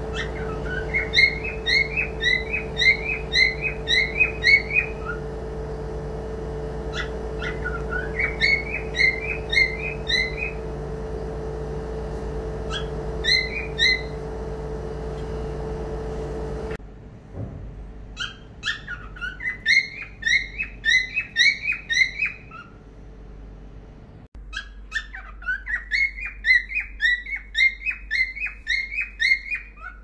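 Cockatiel chirping in runs of quick, rising short notes, about three a second, in five bursts of one to five seconds each. A steady low hum lies under the first half and stops suddenly about halfway through.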